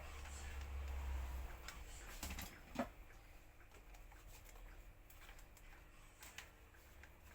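Scattered light clicks and taps, with one sharper knock a little under three seconds in, over a low hum that stops about two and a half seconds in.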